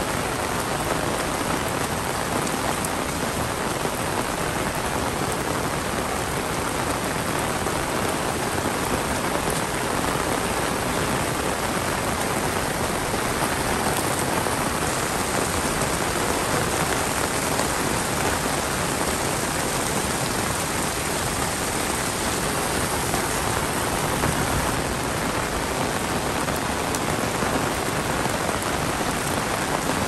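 Heavy rain falling steadily, a dense, even hiss that does not let up.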